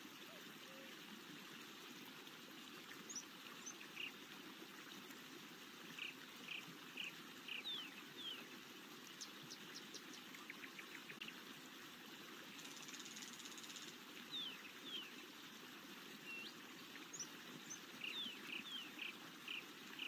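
Forest ambience: songbirds calling over a steady soft rush of a trickling stream. The birds give short high chirps and quick falling whistled notes in clusters, a brief rapid trill near the middle, and a buzzy high note a little after it.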